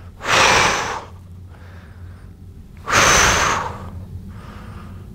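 A man's two hard breaths of exertion during explosive single-leg triple-extension reps against a resistance band, each just under a second long and about three seconds apart.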